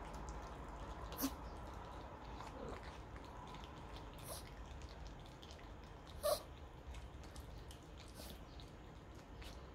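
Chihuahua vocalizing with its teeth bared: two short, sharp yelps, about a second in and about six seconds in, the second one louder, with a few faint whiny grumbles between them.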